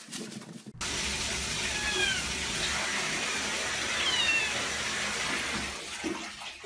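A cat meows twice, two short falling calls, over a steady rushing hiss.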